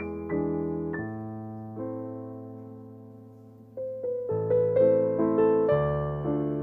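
Background piano music: a slow melody of single notes that fade out, growing louder with fuller chords from about four seconds in.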